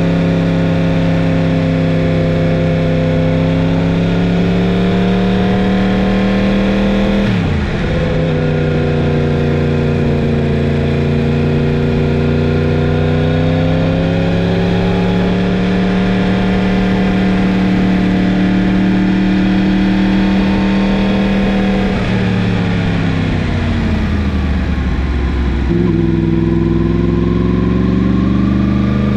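Yamaha MT-10 motorcycle's crossplane inline-four engine running under way at fairly steady revs. The revs dip sharply and recover about a quarter of the way through, sink gradually as the bike slows near the end, then jump up suddenly, as on a downshift.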